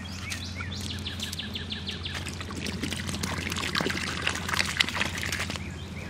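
Water splashing and trickling, with a run of quick high bird chirps about a second in.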